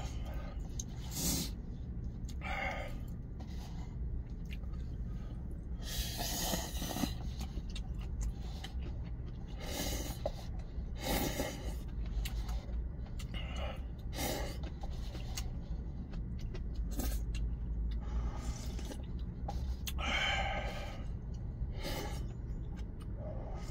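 A man slurping and sipping noodle-soup broth from a paper cup, a short slurp every few seconds with one longer draw about six seconds in, over a steady low rumble.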